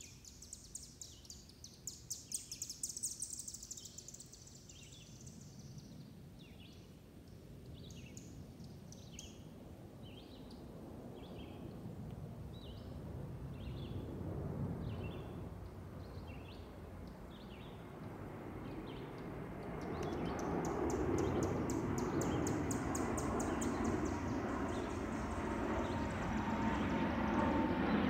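Boeing C-17A Globemaster III's four turbofan engines, heard as a low rumble that grows steadily louder as the jet approaches, with a rising whine near the end. Over the first half, a bird chirps, a fast high trill at first and then short calls about once a second.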